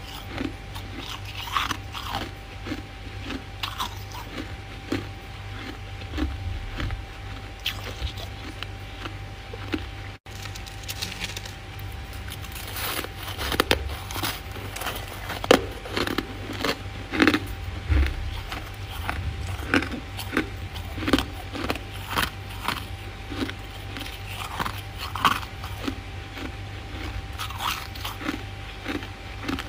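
Freezer frost being bitten and chewed close to the microphone: irregular crisp crunches, coming thicker and louder in the second half, over a steady faint hum.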